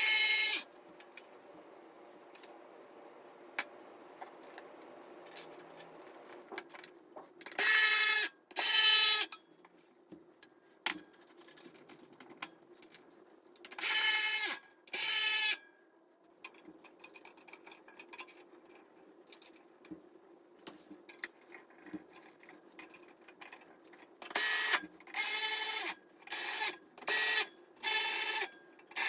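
Cordless electric screwdriver driving screws in short bursts of motor whine: two about 8 seconds in, two more near 14 seconds, then a quick run of four or five near the end. Light clicks and rattles of parts being handled come in between.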